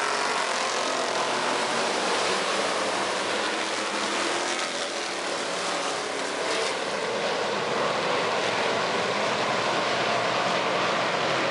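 A pack of hobby stock race cars running together on a dirt oval: many engines blend into one steady drone, and near the start the pitch rises and falls as cars pass close by.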